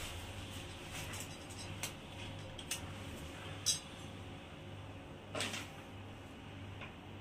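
A few small taps and clicks as a metal wall bracket is held against ceramic tiles and a pen marks through its screw holes, the loudest click a little before four seconds in and a brief scratch just after five seconds, over a steady low hum.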